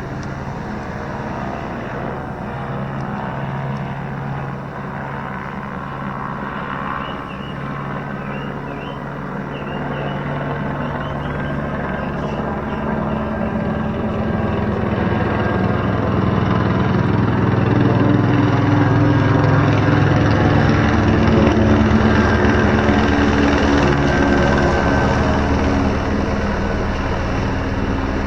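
Helicopter flying a low pass, its rotor and engine running steadily, growing louder about a third of the way in, loudest about two-thirds through, then easing slightly.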